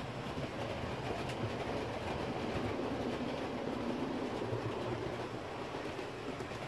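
Model train running along the layout's track, a steady running hum that grows louder about two seconds in and eases off toward the end.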